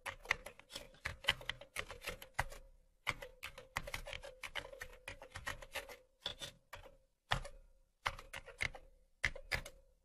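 Rapid, irregular clicking like typing on a keyboard, several clicks a second in runs with brief pauses, over a faint steady hum.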